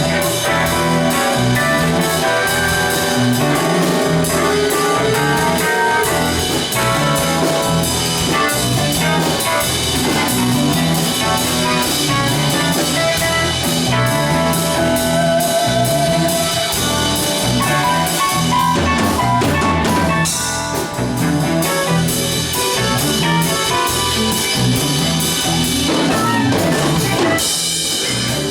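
Live band jamming: drum kit keeping a steady groove with bass guitar, electric guitar and keyboard playing over it.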